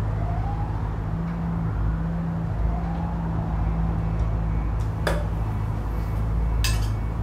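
A low steady hum or drone with faint rising whines in its first few seconds, and two short clicks near the end.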